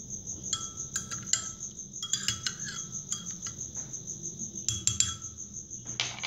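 A metal spoon stirring in a glass mug of kahwa, clinking against the glass in several bursts, each clink with a short ring; the loudest clinks come near the end. A cricket chirps steadily in the background throughout.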